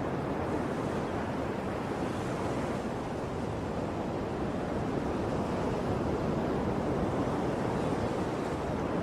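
Sea waves washing onto a shore: a steady rush of surf with no separate breaks standing out.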